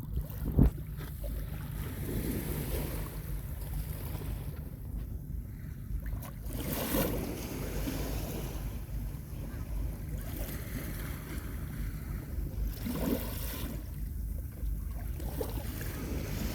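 Small sea waves washing in on a beach, several swells rushing up over a steady low rumble of wind on the microphone. A single sharp knock about half a second in.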